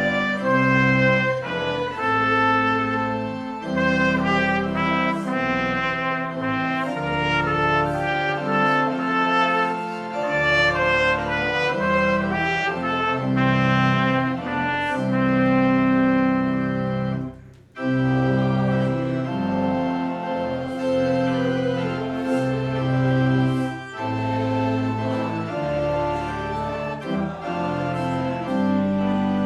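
Organ music, a hymn played in sustained chords with a bright, trumpet-like tone, the chords changing every second or so, with a short break about seventeen seconds in.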